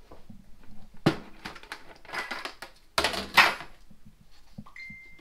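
Plastic containers and small tools clattering and knocking as they are put into a plastic bucket in a bathtub, with a few sharp knocks about one second in and the loudest near three seconds. A short steady high tone sounds near the end.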